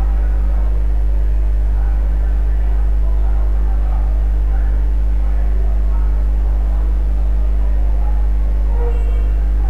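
Steady low hum with a few faint even tones above it, unchanging throughout.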